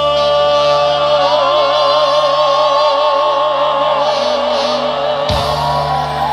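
Live trot band ending a slow ballad, with one long held note wavering in vibrato over sustained accompaniment.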